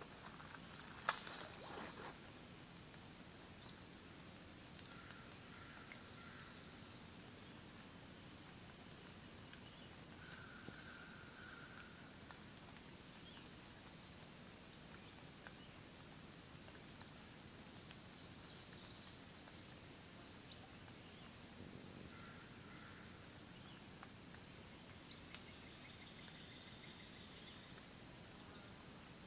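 Steady, high-pitched drone of an insect chorus, with one sharp click about a second in.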